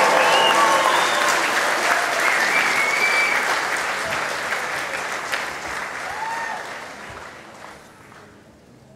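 Crowd applauding with scattered shouts and calls, the applause dying away over the last few seconds.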